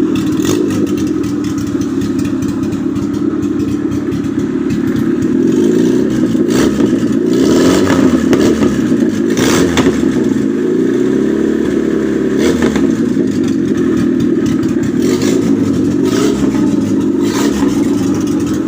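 Toyota 7K inline-four petrol engine, swapped into a Suzuki Jimny, running, its speed rising and falling around the middle. A few sharp knocks sound over it.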